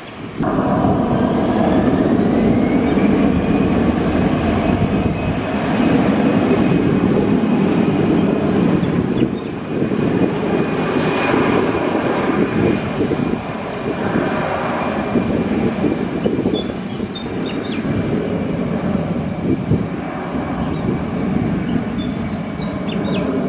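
Airbus A320 jet engines spooling up to take-off thrust: a whine rises about a second in and settles into a steady high tone over a loud, continuous roar as the take-off roll begins.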